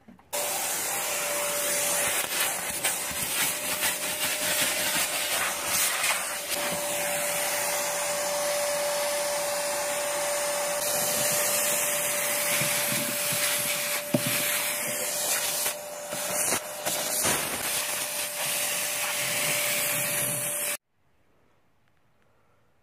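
Vacuum cleaner running with a steady whine and rush of air, its nozzle sucking sand and grit off a bare steel car floor, with a few sharp knocks. It switches on right at the start and cuts off suddenly near the end.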